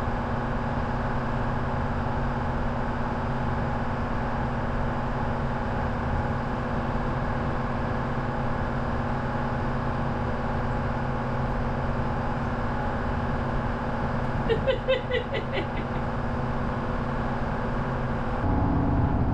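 A trawler's engine running steadily while underway, a constant drone heard from inside the pilothouse. About three-quarters of the way through there is a brief, pulsing squeak of a squeegee on the windshield glass.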